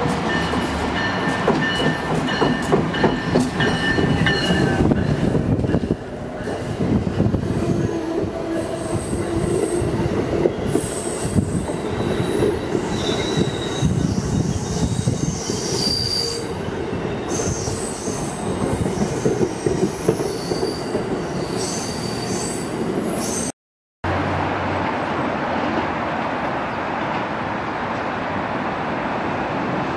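Amtrak Northeast Regional train, an electric locomotive hauling stainless-steel coaches, approaching and passing at speed on the express track: a steady whine from the locomotive first, then the heavy rumble of the coaches going by with high, scattered wheel squeals. After a sudden break about three-quarters of the way through, a steadier, even rushing train noise.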